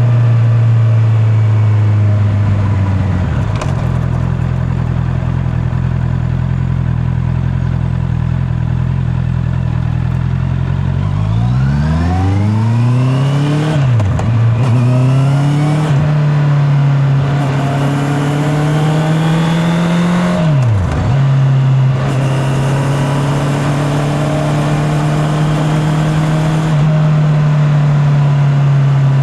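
Honda CB650R's inline-four engine running at a steady speed, then pulling up through the revs and dropping sharply twice as it is shifted up through the gears, before settling into a steady cruise. It is heard from a mic in the rider's back pocket.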